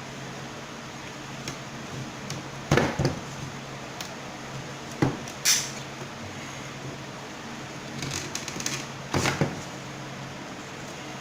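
Laser-cut wooden 3D-printer frame parts being handled and pressed into place: a few sharp knocks and clatters, the loudest about three seconds in, more around five seconds and a cluster near nine seconds, over a steady low hum.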